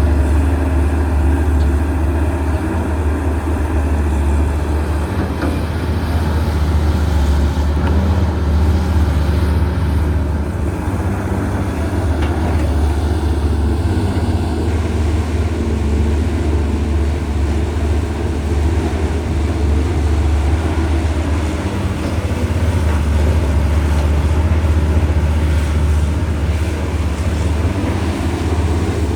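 Diesel engine of a Caterpillar 320CL hydraulic excavator running steadily with a deep hum while the machine works.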